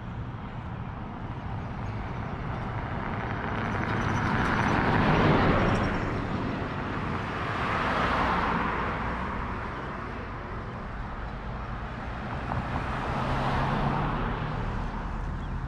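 Road traffic: three vehicles pass close by one after another, each a swell of tyre and engine noise that rises and fades away; the first is the loudest, and the second is a small SUV.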